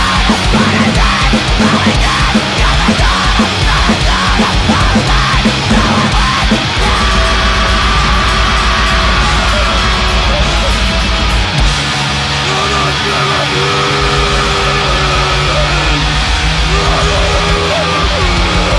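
Loud, distorted noise-rock/powerviolence music: fast, choppy playing for the first several seconds, then a slower, sustained heavy section with held notes that bend in pitch.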